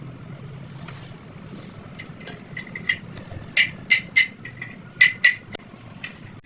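Metal struck sharply several times, each knock ringing briefly, over a low steady hum. It sounds like a tool striking steel clutch parts.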